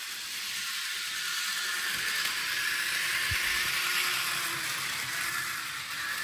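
Bachmann HO-scale Thomas the Tank Engine model train running around its track, a steady high whir of the small motor and wheels on the rails. A soft low bump about three seconds in.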